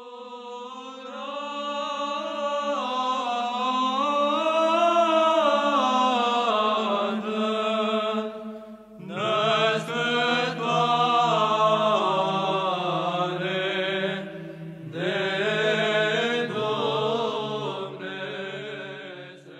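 Male monastic Orthodox chant: a slow, winding sung melody over a steady held drone note. The singing breaks off briefly twice, about nine seconds in and again near fifteen seconds, and the drone drops lower after the first break.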